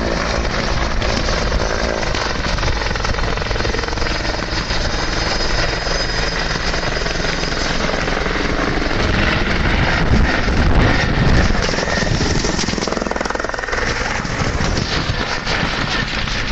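Four-bladed helicopter lifting off and flying away, its rotor beating in a rapid, continuous thudding over the turbine noise. It is loudest about ten seconds in, as it passes close.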